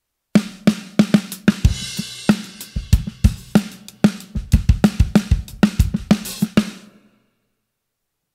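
Drum kit groove with a 14x6.5 walnut Gretsch Full Range snare muffled by a kitchen towel laid fully over its head, giving a low, muffled snare crack, with bass drum and cymbals. The playing stops about seven seconds in and the ring fades out.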